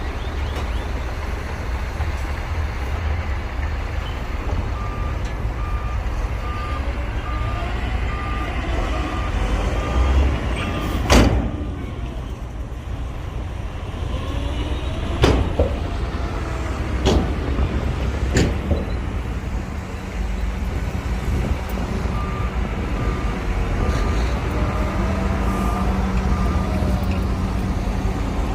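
Heavy dump truck's diesel engine running, with its reversing alarm beeping steadily for several seconds, twice. About a third of the way in and over the next several seconds come four sharp, loud metal bangs.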